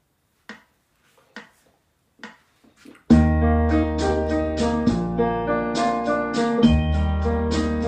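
Four short clicks about a second apart, then a piano backing track with deep bass notes and sustained chords starts suddenly about three seconds in.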